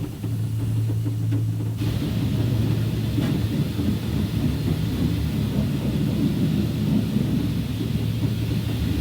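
Truck being washed at a car wash: a steady low machine hum under a hiss of water spray. The spray hiss drops away for about the first two seconds, then comes back.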